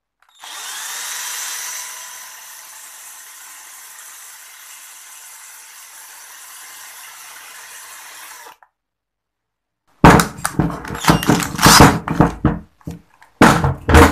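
Cordless drill spinning a Yamaha Autolube two-stroke oil pump through its worm-gear drive shaft, working the plunger through its long full-throttle stroke. It spins up at the start, runs steadily for about eight seconds and stops abruptly. After a short pause comes a loud run of sharp knocks and clicks.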